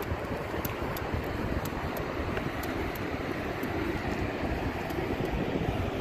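Wind buffeting the microphone: a steady, rumbling rush with no distinct events.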